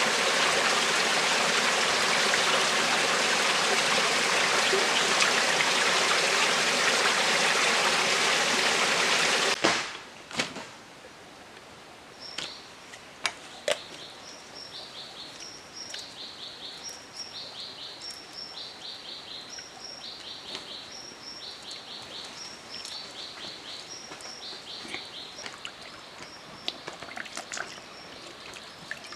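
Loud, steady rush of a rocky jungle stream, cut off suddenly about ten seconds in. Then, much quieter, a bird repeats a short call over and over, a high note followed by a quick run of lower notes about once a second, with a few sharp clicks early in this stretch.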